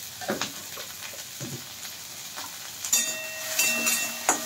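Chopped okra sizzling in hot mustard oil in a metal kadai, with a few light taps. About three seconds in, a metal spatula starts stirring, scraping and clanking against the pan.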